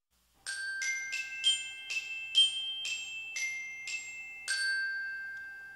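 A short tune of about ten struck, bell-like chime notes, the last one ringing on and fading away.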